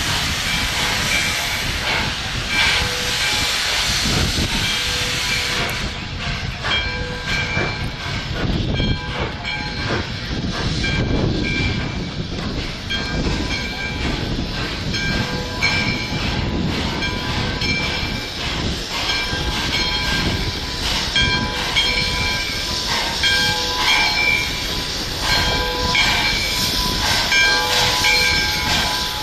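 A train running on the rails, a steady rumble with short high-pitched squeals coming and going.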